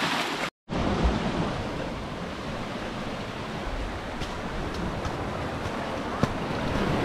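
Sea surf washing through a narrow rocky channel and over rocks, a steady rush of water, broken off by a brief dropout about half a second in.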